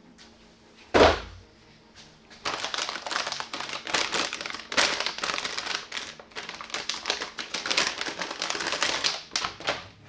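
Computer parts being handled and fitted: a single sharp knock about a second in, then a long run of dense, rapid clicking and rattling.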